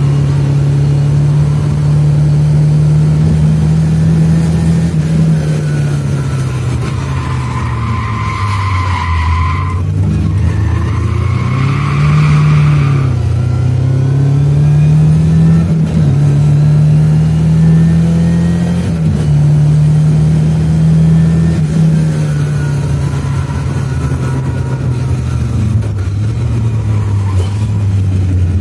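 Lada 2107's 2.0-litre Fiat four-cylinder engine under hard driving, its revs rising and falling repeatedly as it accelerates and lifts off. About a third of the way in, the tyres squeal twice through a corner.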